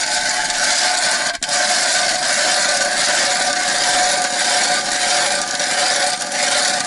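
Hand ice auger, a new 130 mm Tonar Barnaul, cranked steadily through the ice, its blades cutting with a continuous grinding scrape. There is one brief break about a second and a half in.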